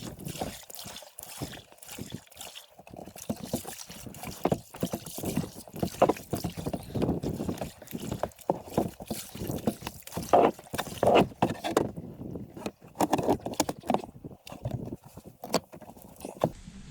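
Splashing water and irregular knocks from a small homemade boat of corrugated plastic sheet being paddled.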